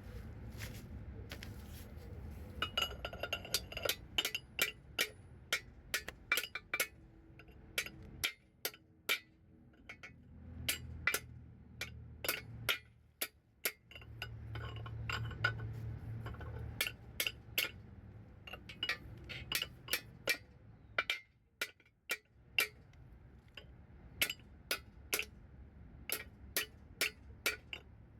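Light, sharp metallic hammer taps on the parts of a Ford M5R1 five-speed manual transmission being reassembled, knocking a part into place. The taps start about three seconds in and come roughly two a second, with a few short pauses.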